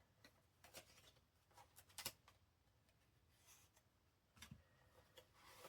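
Faint rustling and light taps of paper and card being handled, in short scattered bursts.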